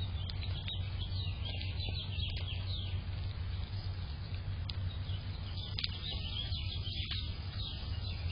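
Small birds chirping: many quick, high chirps in two busy spells, one in the first few seconds and one again near the end, over a steady low hum.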